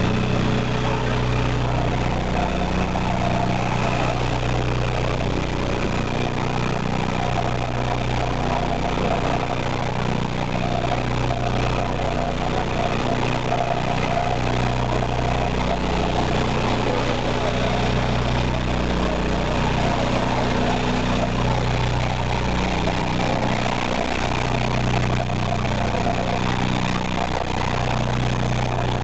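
Shaker on a mud recycler running: its electric vibrator motor hums steadily as mud slurry passes over the vibrating screen.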